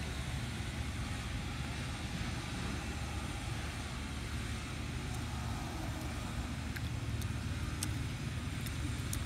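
Steady low rumble of outdoor background noise, with a few faint clicks in the second half.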